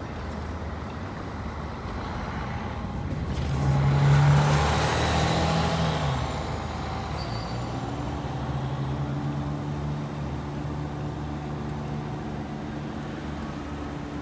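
City traffic, with a large vehicle passing close by, loudest about four seconds in. A steady low hum from a running motor continues after it.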